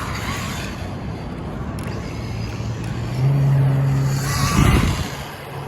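A 3S-powered RLAARLO ROG1 RC car running on pavement: a low steady hum that steps up in pitch about three seconds in, and a loud rushing whoosh about four and a half seconds in as it speeds past.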